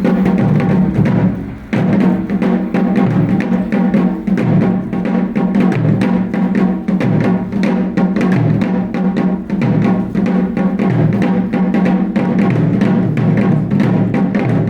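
Wadaiko (Japanese taiko drums) played as an ensemble in a steady, driving rhythm of dense strikes.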